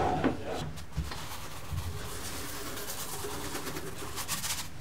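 Steady low hiss from vermicelli cooking in an electric pan, with a short spray of salt grains pattering into it near the end.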